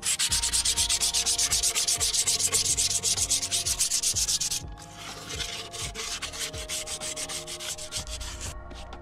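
A hand rubbing fast back and forth over the bare wooden top of a skateboard deck, a scratchy rhythmic swishing at about ten strokes a second. After about four and a half seconds the strokes turn softer and slower.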